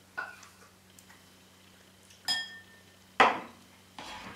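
Clinks and knocks of chopsticks and tableware during a meal: a light click at the start, a ringing clink about two seconds in, and a louder knock about three seconds in.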